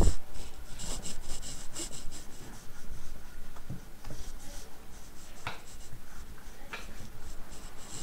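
Whiteboard eraser rubbing across a whiteboard in repeated wiping strokes. There is a heavy low thump at the very start and a couple of light clicks in the second half.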